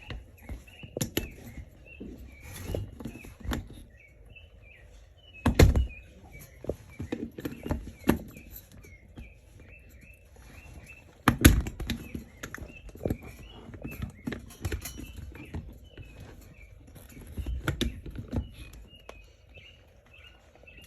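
Irregular knocks and handling thumps as a pond outlet's tank connector nut is worked tight, the two loudest about five and eleven seconds in. Birds chirp faintly in the background.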